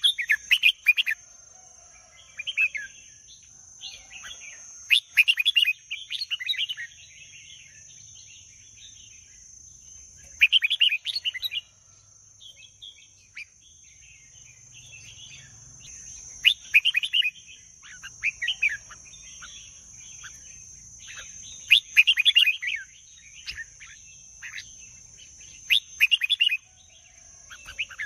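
Red-whiskered bulbul singing: short, bright warbled phrases repeated every two to five seconds, over a steady high-pitched whine.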